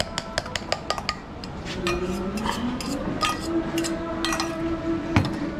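A spoon beating egg filling in a stainless steel mug: fast, even metal clinks for about the first second, then a few scattered clinks as the mixture is poured out. Behind it, a low drone rises in pitch and then holds, and a single knock comes near the end.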